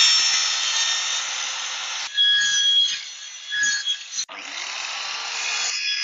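Corded circular saw cutting across the supports of a plastic pallet. It stops about two seconds in, then is started again, spinning up about four seconds in for another cut.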